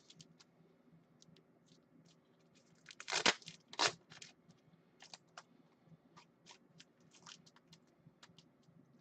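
Faint desk handling noises: scattered light clicks, with two short crinkling rustles a little over three seconds in, like plastic card sleeves or top loaders being handled.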